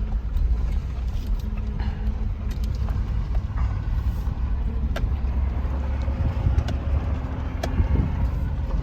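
Pickup truck driving slowly on a rough dirt road: a steady low engine and tyre rumble, with scattered clicks and knocks from the ground and the body.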